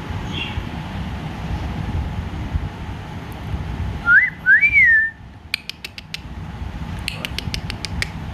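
Two short, loud, clear whistles about four seconds in, each sliding up and then down in pitch, the kind of whistle used to call a pet budgie. A run of sharp clicks follows, over a low steady rumble.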